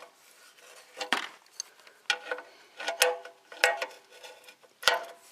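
Hand tools clinking and knocking against metal parts, about half a dozen scattered strikes, some with a brief metallic ring. This is the sound of working at a stubborn part while changing the engine oil.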